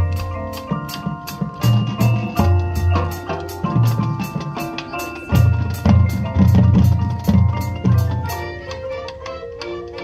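High school marching band playing its show: sustained wind chords over heavy low notes, with mallet percussion from the front ensemble and a steady quick pulse of clicks, about four a second. The music grows softer over the last couple of seconds.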